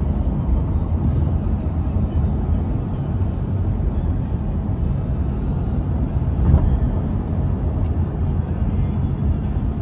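Steady low rumble of road and engine noise inside a car cabin while the car is being driven.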